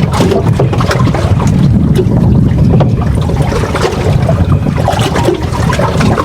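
Steady low rumble of wind on the microphone, with water splashing against the hull of a small boat under way.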